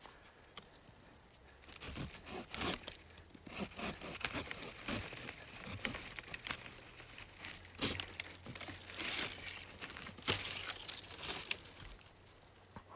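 Folding pruning saw cutting through a small living pine trunk in irregular back-and-forth strokes, a scratchy sawing that starts about a second and a half in and stops shortly before the end.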